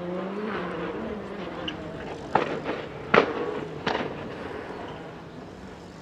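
Rally car engine running at a distance, with three sharp exhaust bangs a little over two, three and four seconds in.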